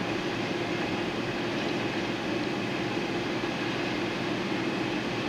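Steady mechanical hum: a constant drone over an even rushing noise, unchanging throughout.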